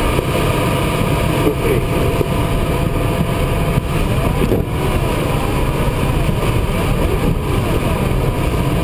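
Air rushing over the canopy of a DG300 sailplane, heard from inside the cockpit as a loud, steady rush with no engine. A faint tone that bends up and down in pitch sits underneath.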